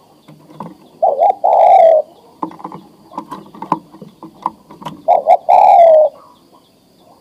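Male spotted dove (tekukur) cooing its courtship call to a female, the call of a bird ready to breed: two phrases about four seconds apart, each a short wavering note followed by a longer note that slides slightly downward. Faint clicks and knocks fall between the calls.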